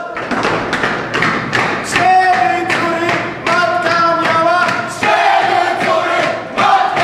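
A group of cadets chanting in unison as they jog in step, their boots thudding regularly on a hard floor.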